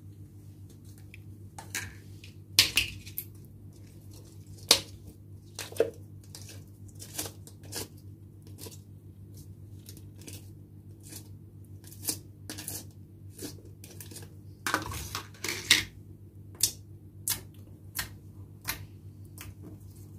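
Clear pink slime being poked, pressed and spread by hand, giving irregular wet clicks and pops, with a denser cluster about three seconds in and again around fifteen seconds. A steady low hum runs underneath.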